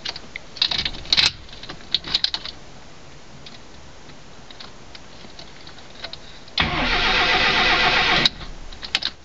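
A few light clicks, then a ZAZ Tavria's starter cranking the carburetted engine for under two seconds without it catching. The owner puts the failed start down to too little fuel without the choke.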